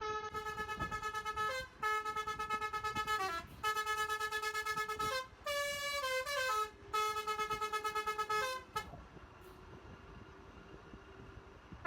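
Basuri multi-tone 'telolet' bus horn playing a melody in five phrases of about a second and a half each. Most of each phrase is one held note, with a quick change of pitch at its end, and one phrase steps down through several notes. The sound pulses rapidly throughout and stops about nine seconds in.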